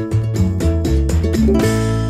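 Background music: plucked guitar over a bass line that moves in quick steps, ending on a chord that rings out near the end.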